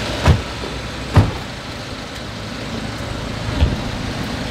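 Steady low rumble of an idling vehicle engine, with two sharp thumps in the first second and a softer one near the end.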